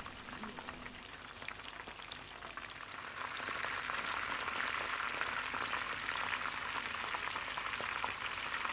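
Masala-coated fish fillets shallow-frying in hot oil in a pan: a steady sizzle with many small crackles from the bubbling oil, growing louder about three seconds in.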